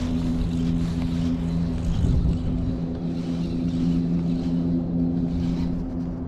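A steady low mechanical hum holding two pitches throughout, over a constant low rumble.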